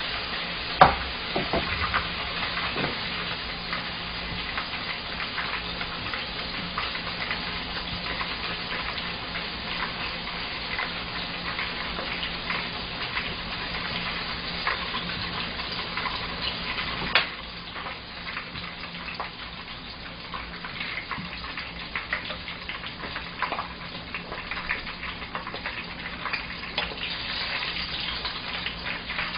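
Tempura-battered shiitake mushrooms and green pepper deep-frying in hot oil: a steady crackling sizzle full of small pops. Two sharp clicks stand out, one about a second in and one about 17 seconds in, after which the sizzle is a little quieter.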